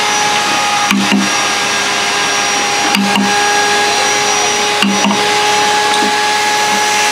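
A wooden mallet strikes a woodcarving chisel in pairs of quick knocks about every two seconds, three pairs in all. Underneath is a loud, steady machine drone with a constant whine.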